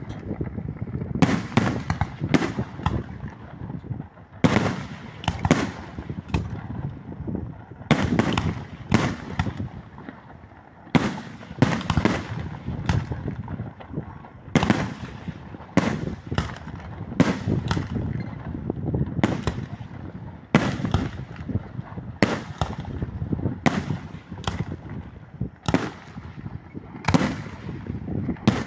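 Fireworks display: a long run of sharp bangs, often about two a second, each followed by a deep rumbling boom, with a few short lulls between volleys.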